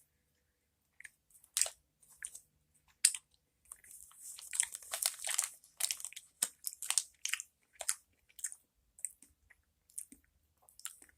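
A person chewing a Warheads sour gummy candy close to the microphone: irregular short chewing sounds, busiest in the middle.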